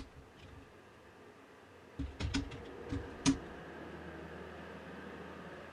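Computer keyboard keys clicking as a terminal command is typed: one keystroke at the start, then a quick run of about six keystrokes about two seconds in, the last one the loudest.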